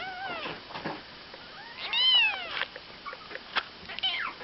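A young kitten mewing: three high-pitched calls that rise and fall in pitch, the longest and loudest about two seconds in.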